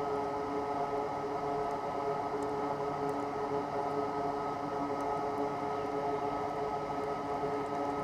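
A small motor or fan running steadily with an even whirr and a thin whine held on one pitch, with a few faint ticks.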